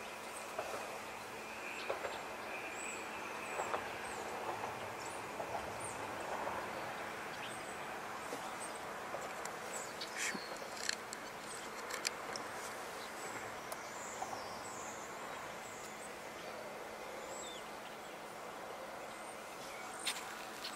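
Outdoor ambience: a steady hiss of background noise with faint, high-pitched bird calls and chips scattered through it, and a few short, sharp clicks.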